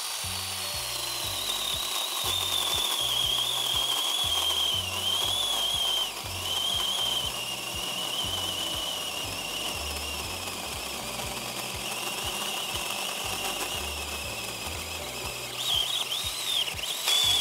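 Small cordless electric chainsaw (Ohteraya battery model) cutting through a thin apple-wood log. The motor and chain give a steady high whine whose pitch sags and wavers as it works through the wood, then rises again near the end.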